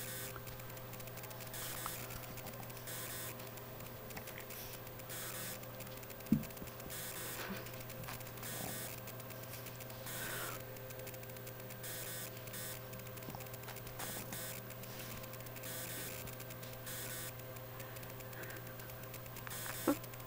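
Quiet room tone: a steady low hum and faint hiss, broken by one sharp knock about six seconds in and a few faint brief squeaks.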